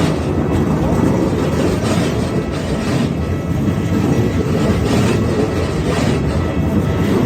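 An electric train passing close by at speed, a steady loud rumble with the clatter of its wheels over the rails.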